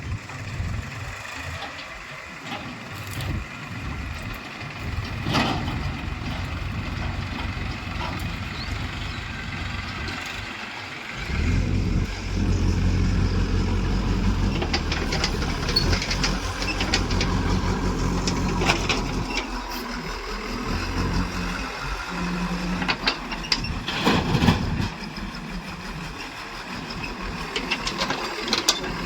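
Heavy vehicle engine running. It grows much louder and deeper about eleven seconds in, with a few short knocks along the way.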